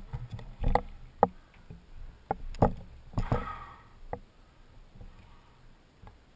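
Boots crunching on loose gravel and rock as someone walks, a step roughly every half second, with a longer scrape a little after three seconds in; the steps fade and thin out over the last two seconds.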